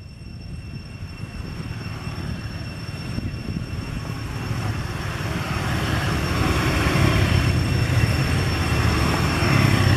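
A low rumbling noise, like a vehicle, that grows steadily louder, with two steady high-pitched tones running through it.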